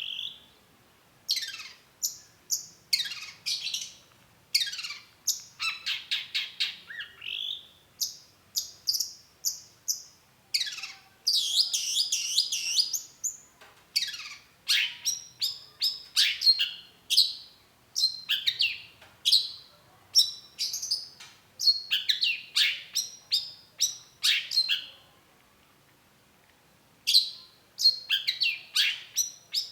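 Long-tailed shrike singing: rapid runs of sharp notes that sweep downward in pitch, mixed with a stretch of harsh, scratchy chatter. It breaks off for a couple of seconds near the end, then resumes.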